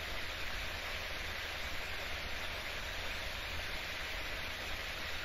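Steady, even hiss of background noise with a low hum underneath; no taps or other events stand out.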